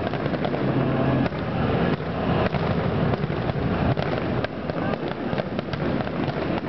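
Aerial fireworks in a finale barrage: shell bursts and crackling follow one another so fast, several a second, that they run together with no pause.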